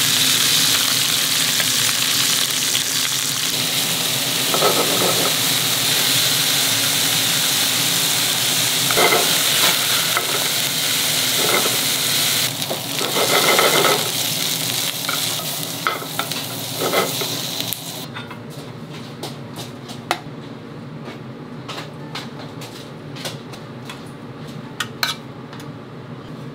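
Food sizzling in a hot pan, with a few brief louder scrapes or stirs. About two-thirds of the way through the sizzling stops suddenly, leaving scattered light clicks and taps of utensils.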